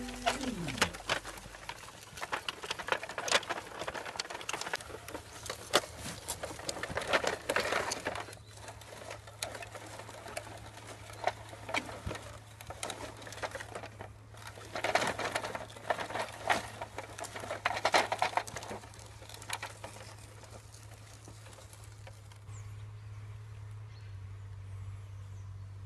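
Toy vehicles being handled and played with: scattered clicks, knocks and rustling scrapes, busier in a few short spells, over a faint steady low hum.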